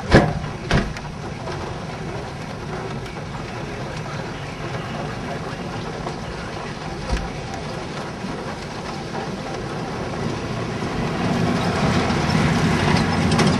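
Steady rain noise with two sharp knocks right at the start and a fainter one about seven seconds in; the rain grows louder near the end.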